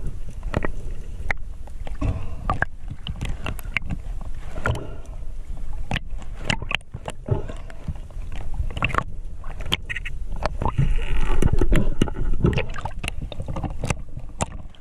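Water sloshing and gurgling around a camera carried by a diver spearfishing underwater, with many scattered clicks and knocks and a low rumble.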